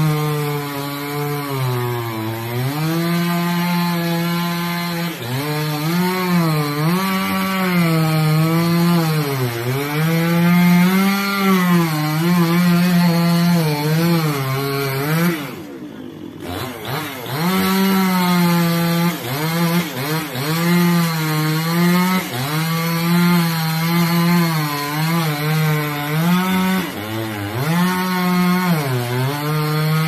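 Two-stroke chainsaw cutting wood, its engine revving high and sagging under load over and over. About halfway through it drops briefly toward idle, then revs back up.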